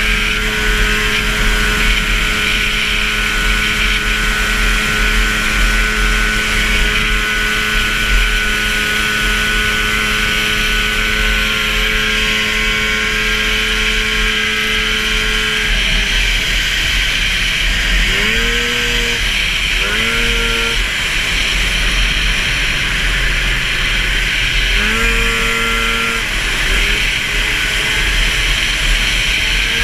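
440 super stock racing snowmobile's two-stroke engine held flat out at a steady high pitch, then backing off about halfway through, with a few short rising bursts of throttle through the turn. Heavy wind and track noise on the onboard microphone.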